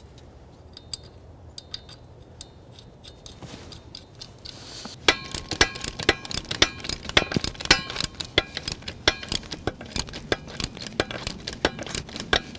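Sharp metallic clicks with a short ring, a few a second from about five seconds in, faint and sparse before that, as the jack screws under the idle wheel's bearing mount are turned to adjust the wheel's tilt.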